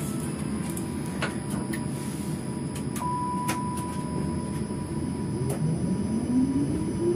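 Tram running along the track, heard from the driver's cab: a steady rolling rumble with a few faint clicks and a thin steady high tone. From about five and a half seconds in, the whine of the traction motors rises steadily in pitch as the tram picks up speed.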